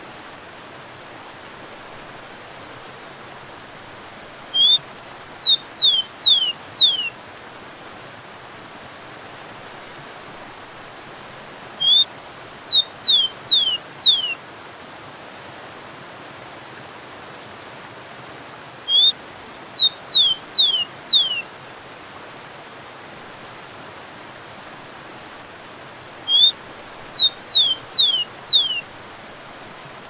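Rufous-collared sparrow (tico-tico) singing four times, about every seven seconds; each song is a short rising note followed by a run of quick down-slurred whistles. Under it, the steady rush of a waterfall.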